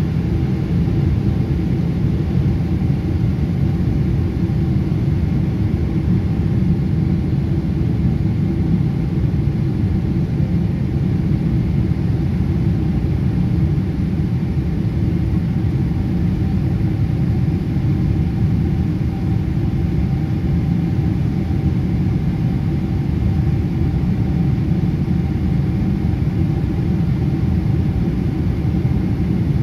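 Steady low rumble of a Boeing 777 in flight, heard inside the passenger cabin: jet engine noise and rushing air, with a faint steady hum above it.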